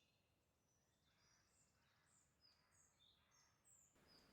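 Near silence with faint rainforest bird calls: many short, high chirps and quick pitch glides.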